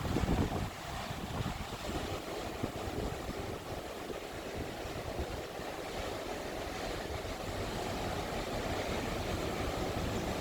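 Steady ocean surf with wind buffeting the microphone, in gusts that are strongest about half a second in.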